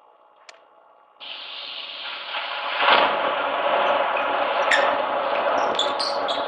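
Storm sound effect played over a hall's speakers: a loud rushing noise that starts suddenly about a second in and swells to a deep crash, then keeps going steadily.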